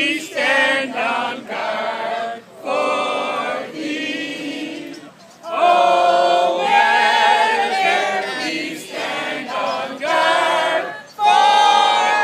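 A group of voices singing together unaccompanied, in phrases with short breaks between them.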